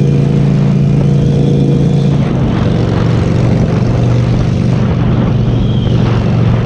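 Harley-Davidson V-twin motorcycle engine running steadily while riding, heard from the rider's seat with wind rushing over the microphone. The engine note steps a little lower about two seconds in.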